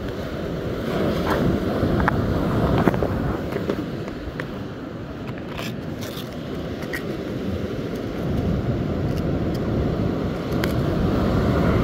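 Wind buffeting the microphone over the steady rumble of breaking surf, with scattered sharp clicks and rattles from a clear plastic tackle box and its small compartments being handled.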